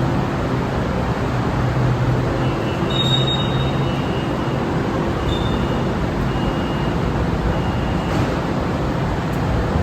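Steady rumble and hum inside a Pink Line monorail car, with a few brief faint high tones a few seconds in.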